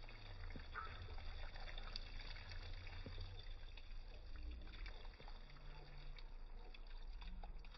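Water from a plastic watering can's sprinkler rose pattering faintly onto ferns and soil, over a low rumble.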